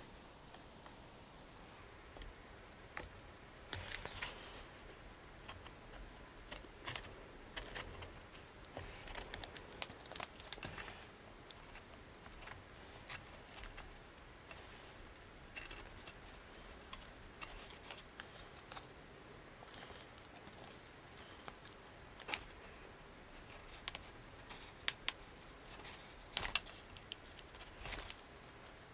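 Close-up handling noise: a small hand tool clicking and scraping against the thin metal band and fittings of an old helmet's leather liner, with light rustles of the leather. Scattered irregular clicks throughout, with a few sharper clicks near the end.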